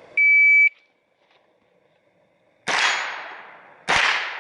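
Shot timer sounds a single steady electronic start beep. About two seconds later come two gunshots roughly a second apart, each a sharp crack with a long fading echo.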